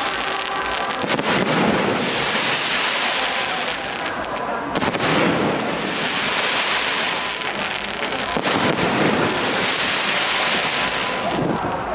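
Aerial fireworks bursting without a break: dense crackling with heavier bangs every second or two.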